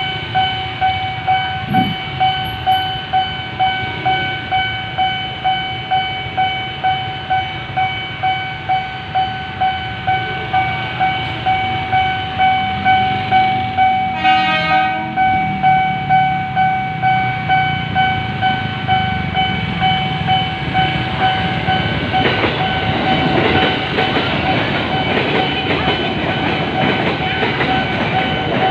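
Railway level-crossing warning siren sounding a steady high tone that pulses evenly, just under twice a second. About halfway through, a train horn gives a short blast. Near the end the siren fades under a train passing over the crossing, its wheels clattering on the rails.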